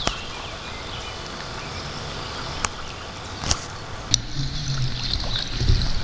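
Outdoor river ambience: a steady wash of noise with a few sharp clicks, and a low hum that comes in about four seconds in.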